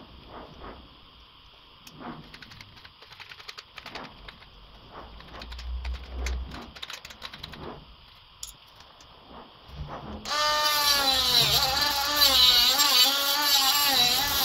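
Scattered light clicks and taps as a plastic grille with honeycomb mesh is handled. About ten seconds in, a cordless drill starts running loudly, its whine wavering up and down in pitch as it takes load.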